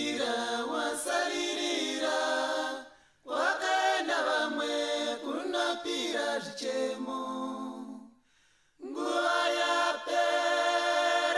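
Background music: an unaccompanied choir singing, breaking off briefly about three seconds in and again for most of a second around eight seconds in.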